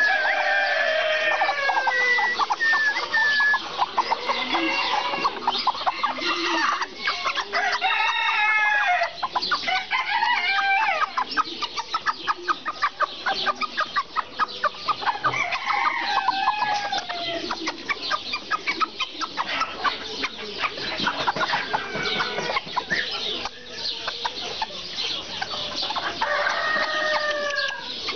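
Serama bantam chickens: roosters crow several times a few seconds apart over continual clucking from the flock.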